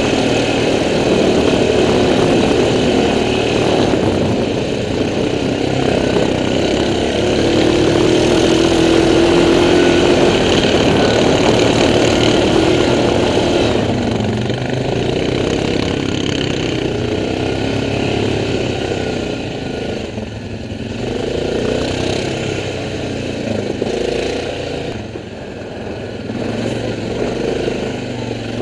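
4x4 ATV engine running under load as the quad climbs a rough dirt track and grassy slope, dropping slightly twice near the end as the throttle eases.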